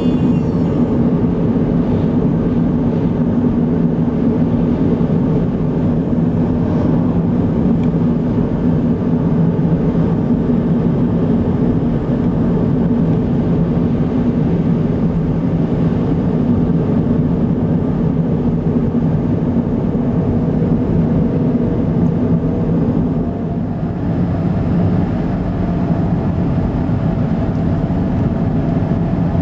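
Steady engine and tyre noise inside a moving car's cabin, cruising on an open road. A faint steady tone joins about two-thirds of the way through.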